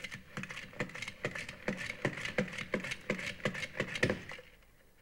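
Metal pump-action spinning top being spun up: its plunger is pushed down about four times a second, each stroke a short rattling clack, until the pumping stops a little after four seconds in.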